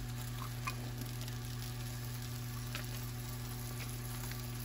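Oven-hot chicken wings sizzling in their pan fat while being basted with melted butter, over a steady low hum, with a few faint clicks from the silicone brush and pan.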